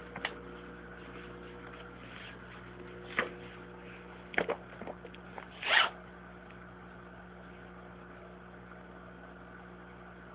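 A steady low hum, with a few short rustling scrapes of handling noise on the recording device. The loudest and longest scrape comes just before six seconds in.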